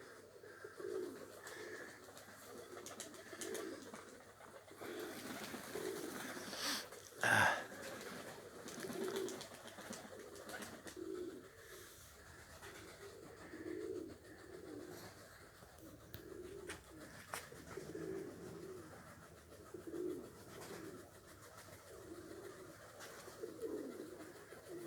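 Domestic pigeons cooing, soft low calls repeating every second or two. A single sharp knock sounds about seven seconds in.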